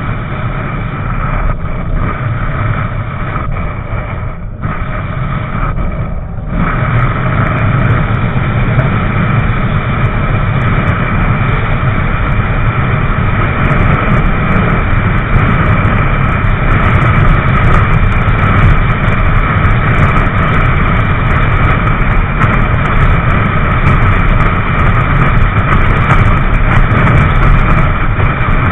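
Motorcycle riding at freeway speed: steady engine drone buried under heavy wind noise rushing over the microphone. There are brief dips in the first six seconds, after which the sound grows louder and stays steady.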